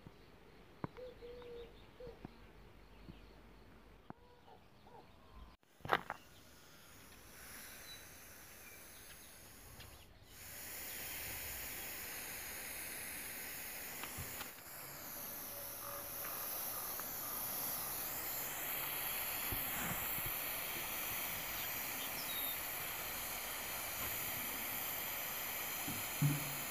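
Small gas torch hissing steadily from about ten seconds in while it melts plastic strips into a patch for a plastic weld. Before that it is quiet, with a few faint clicks and one sharp click about six seconds in.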